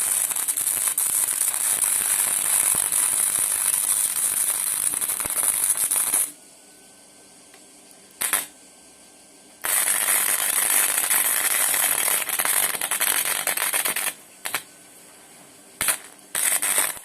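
Electric arc welder crackling as it lays welds on steel stock: a long run of about seven seconds, a brief burst, a second run of about four seconds, then a few short tack-like bursts near the end.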